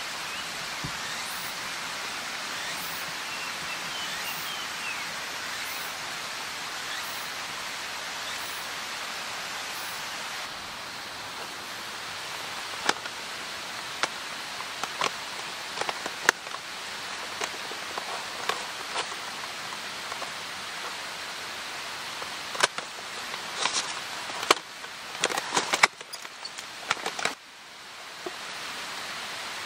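Steady hiss of falling water. From about a dozen seconds in, scattered sharp ticks sound over it, coming more thickly near the end.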